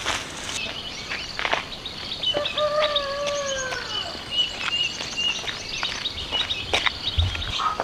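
A rooster crowing once, a long call that falls away at the end, about two and a half seconds in, over small birds chirping.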